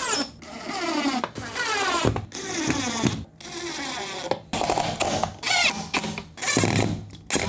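Power drill driving Phillips screws through the standing-desk frame into the tabletop in a series of short runs, its motor whine gliding up in pitch as each run starts.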